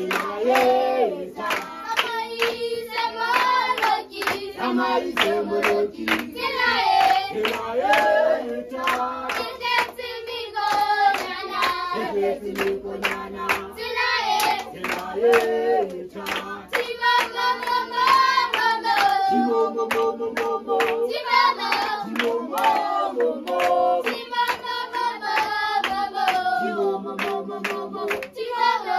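A group of children singing a Sesotho hymn together while clapping their hands steadily in time.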